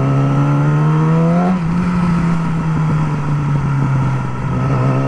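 Yamaha R6 sport bike's inline-four engine accelerating, its pitch rising, then dropping suddenly at an upshift about a second and a half in. It then runs at a steady pitch before starting to climb again near the end.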